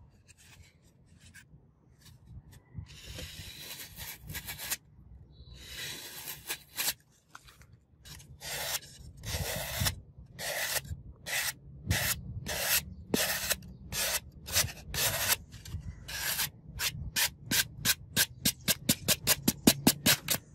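Knife blade slicing and shaving through a block of green floral foam in repeated strokes. First come two long, slow cuts, then short cuts about two a second. These quicken to several a second and grow louder near the end.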